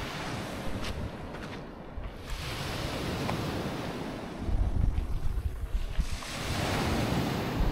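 Sea waves washing onto the beach, swelling and falling back twice, with gusts of wind rumbling on the microphone.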